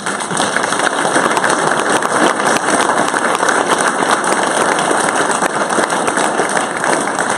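Audience applauding: steady, dense clapping that begins to die away near the end.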